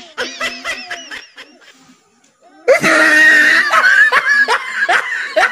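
Loud laughter breaks out about three seconds in. It is shrill and screaming at first, then goes on in quick rhythmic bursts of about three a second.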